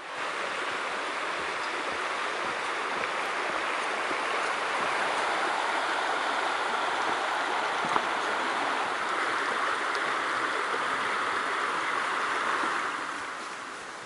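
Mountain stream rushing, a steady wash of water that fades down near the end.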